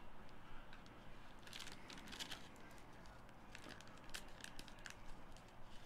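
Faint rustling and light clicks of Upper Deck Synergy hockey trading cards being handled, slid and flipped through by hand.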